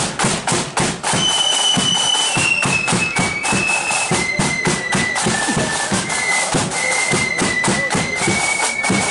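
Marching flute band playing: shrill flutes take up a tune a little over a second in, held notes stepping up and down, over a steady beat of marching drums.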